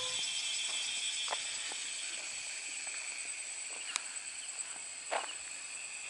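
Insects buzzing in a steady high-pitched chorus, with a few short clicks and knocks, the loudest about five seconds in.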